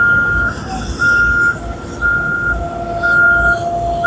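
Reversing alarm on a road-works vehicle, a single high beep repeating about once a second, over an engine running low.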